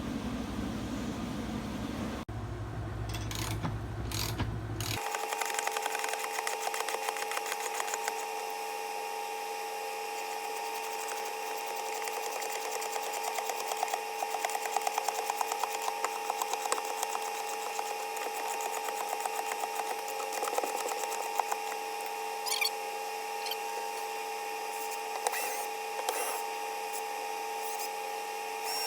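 Power drill running with a steady whine and a stream of small rattling clicks while a wall mount is drilled and screwed in, after a few seconds of low rumbling noise.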